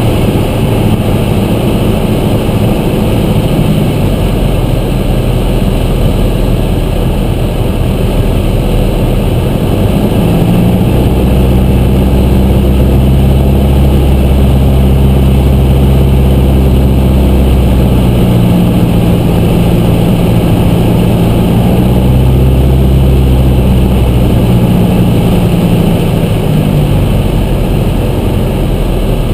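Piper Archer III's four-cylinder Lycoming engine and propeller running loudly, heard inside the cockpit over steady airflow noise. The engine note shifts several times as power is adjusted on a short-field approach.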